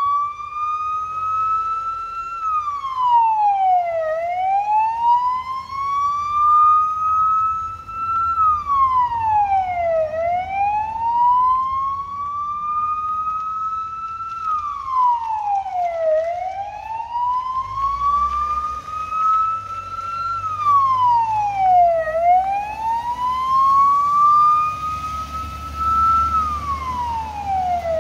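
Federal Signal PA300 electronic siren sounding its wail tone through the car's siren speaker. The pitch rises over about four seconds, falls back in about two, and repeats roughly every six seconds.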